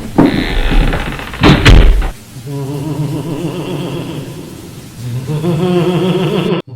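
Several heavy bangs over a deep rumble, then a low wavering hum with a pitched tone that swells again near the end.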